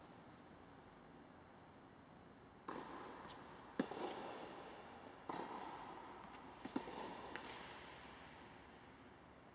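Tennis ball being hit back and forth in a rally: a handful of sharp racket strikes and bounces over a few seconds in the middle, each ringing on in the echo of an indoor tennis dome.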